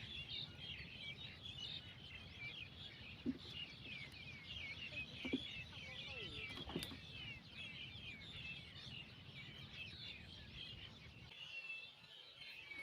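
Faint chorus of many small birds chirping, quick overlapping chirps with no pause until near the end, and a few soft knocks.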